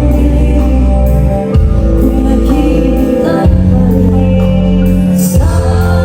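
Loud amplified live band music, with a heavy bass line and sustained chords that change every second or two over a regular cymbal beat.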